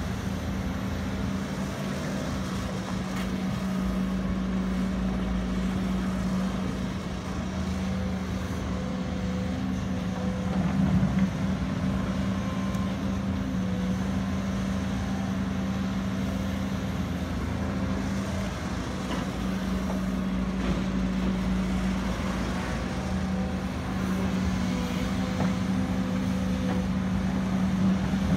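Diesel engine of a Hidromek HMK230 H4 tracked excavator running steadily as the machine digs and dumps soil, a constant drone whose note dips and swells briefly about eleven seconds in, where it is loudest.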